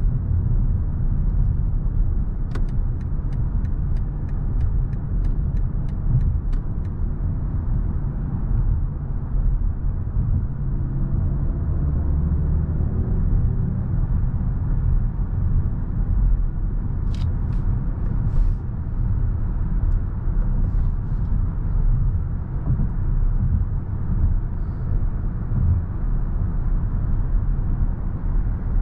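A 2023 BMW i7 xDrive60 electric sedan on the move, with a steady low road and tyre rumble. From about two to seven seconds in there is a run of evenly spaced ticks, about three a second, and a single sharp click follows about halfway through.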